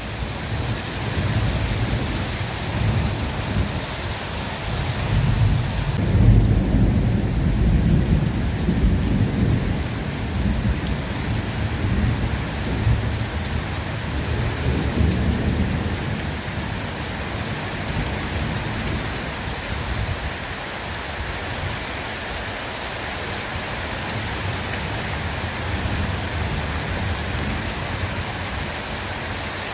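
Steady rain falling on forest foliage, with a long rumble of thunder through the first half that fades away, leaving the rain alone.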